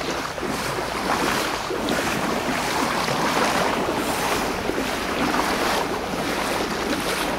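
Floodwater rushing along a flooded street in a steady, even rush, with wind noise on the microphone.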